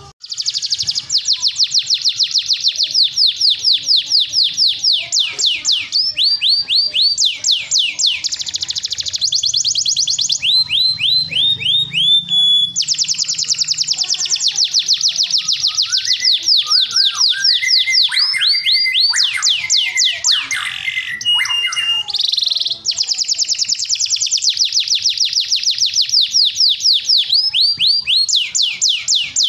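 Male canary singing a long, unbroken song of rapid high trills, each a fast run of one repeated rising note, switching to a new trill every few seconds. Lower whistled and warbling notes are mixed in around the middle.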